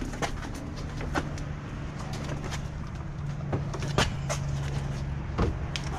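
A steady low motor hum with several scattered knocks and clicks.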